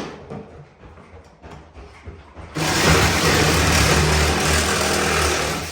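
Faint handling knocks, then about two and a half seconds in an electric power tool's motor starts and runs steadily with a low hum for about three seconds.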